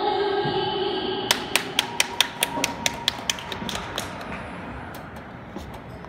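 One person clapping close by, about four or five sharp claps a second for a couple of seconds before dying away, over faint figure-skating program music.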